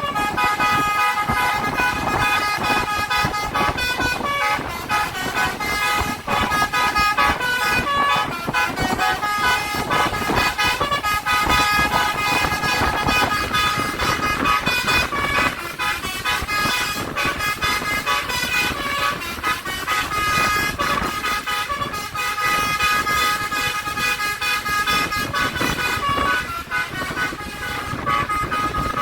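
Telolet basuri horn of a tour bus playing its multi-note melody over and over, with road and engine noise underneath.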